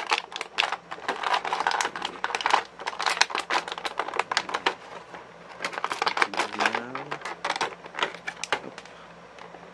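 Plastic blister packaging crinkling and clicking in irregular bursts as an action figure is worked out of its box.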